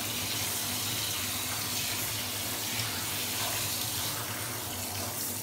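Water spraying steadily from a handheld shower onto a dog's soapy coat as the shampoo is rinsed off in a bathtub.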